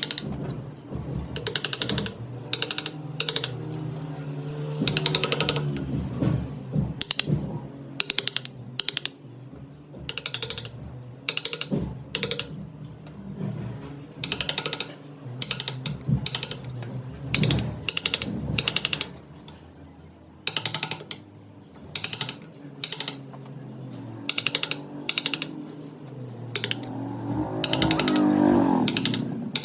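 Wood lathe with a turning tool cutting the spinning wooden blank in many short, irregular passes, each a brief rasping scrape, over a steady lower hum.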